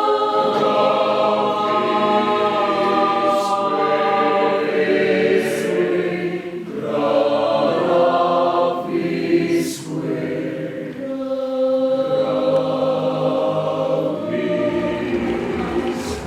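Choir singing contemporary choral music: held chords that shift every second or two, with the voices landing sibilant consonants together a few times.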